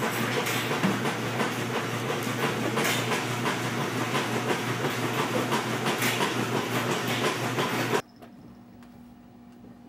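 Motorised treadmill running with a cat walking on its moving belt: a steady rolling whirr with a rhythmic low rumble from the belt and motor. It cuts off suddenly about eight seconds in, leaving faint room tone.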